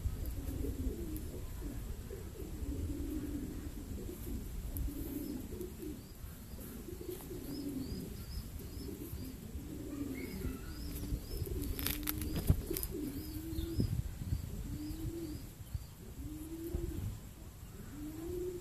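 Pigeons cooing over and over, a low call repeated about once a second. A small bird gives a run of faint, high, quick chirps in the middle, and a few sharp clicks come about two-thirds of the way in.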